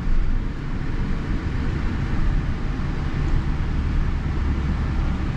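Steady low rumble of a vehicle's engine and road noise while driving.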